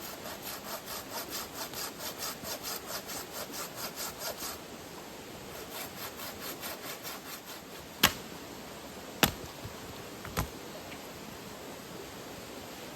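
Hand saw cutting wood with quick, even rasping strokes, about four a second. The strokes pause, resume more softly, then give way to three sharp knocks about a second apart.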